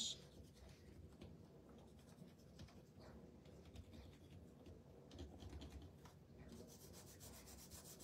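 Faint scratchy rubbing of a Distress Crayon drawn in short strokes over embossed cardstock, a little busier in the second half.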